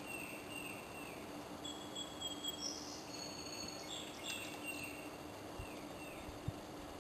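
Outdoor ambience with bird calls: a short falling chirp repeated about twice a second, and thin high whistles in the middle, over a steady low hum. A couple of brief soft knocks near the end.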